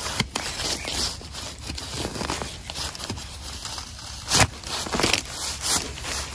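Crackling and crunching of leaves and twigs in forest undergrowth, with three louder sharp snaps in the second half.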